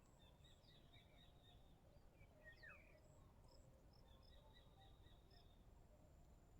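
Near silence: faint rural ambience with scattered bird chirps and a faint steady insect trill over a low background rumble.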